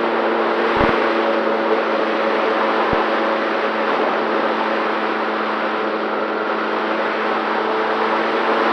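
The electric pusher motor and propeller of an FX-79 flying wing running at a steady pitch in flight, with a rush of wind on the onboard microphone and a few low wind buffets about a second in.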